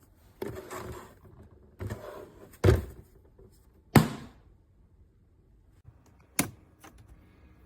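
Water bottles being handled in and out of a small thermoelectric mini fridge: rustling and scraping, two hard knocks, then a sharp click near the end as the small door shuts.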